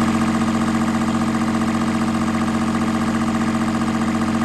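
An engine running steadily at a constant speed, with an even hum and no change in pitch.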